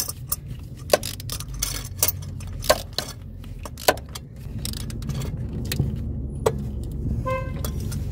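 Sharp metallic clicks and clinks as an oil filter wrench is worked on a newly fitted spin-on oil filter and taken off. A vehicle engine's low rumble builds through the second half, with a short car-horn toot near the end.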